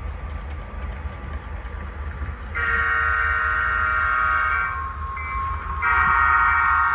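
Multi-chime diesel horn from a model locomotive's sound decoder, sounding two long blasts, the first about 2½ seconds in and the second about a second after it ends, over the low rumble of a model train running on the track.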